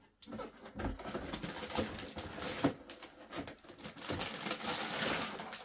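Rummaging in a cardboard box: plastic bags of Lego pieces rustle and rattle against the cardboard, with many small clicks and knocks.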